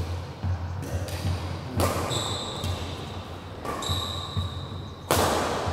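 Badminton rally on an indoor court: players' feet thump on the floor, shoes squeak sharply about two and four seconds in, and sharp hits of racket on shuttlecock, the loudest about five seconds in, echo in the hall.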